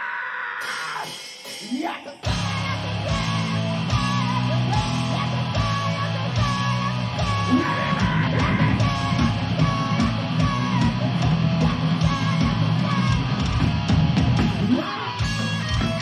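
Heavy metal band playing live, with distorted electric guitars, pounding drums and shouted vocals; the full band comes in hard about two seconds in after a quieter opening.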